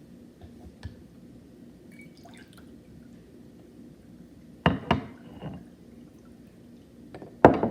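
Water being added to a homemade baking-soda volcano, with small drips and clicks and two sharp knocks, one about five seconds in and one near the end.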